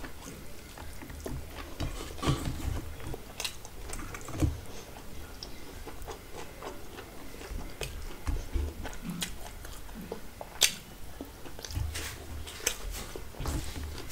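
Close-miked chewing of a mouthful of rice and curry eaten by hand, with irregular wet mouth clicks and smacks; the sharpest click comes about two-thirds of the way through.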